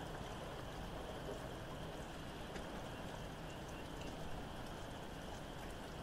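Steady rain with scattered raindrop ticks, over a faint, steady, high chorus of distant frogs.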